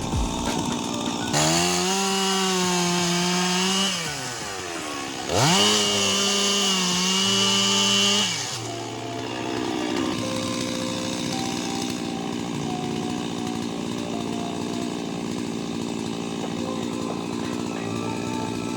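Two-stroke chainsaw run up to full throttle twice, each burst lasting about three seconds, rising sharply in pitch and then dropping back with a short lull between them. After that it settles to a quieter, steady running sound.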